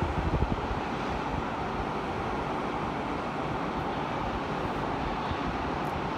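Steady rushing outdoor noise, with wind buffeting the microphone briefly at the start.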